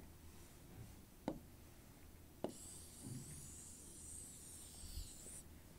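Faint rubbing of writing being wiped off a board, lasting about three seconds from midway, after two light taps.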